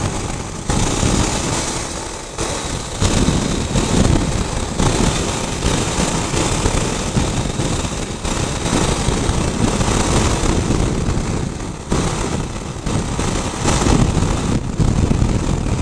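Motorcycle riding at highway speed: a loud, gusting rush of wind buffeting the bike-mounted microphone over the engine running.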